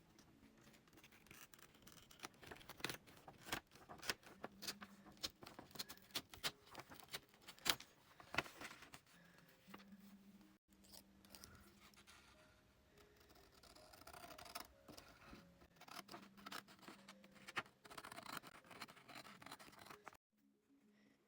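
Drawing tool scratching on paper in quick, irregular strokes. The strokes stop abruptly near the end.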